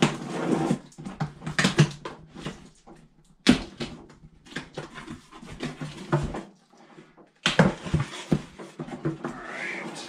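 Cardboard box being opened by hand: irregular scraping, rustling and knocking of the cardboard flaps, with several louder sharp scrapes.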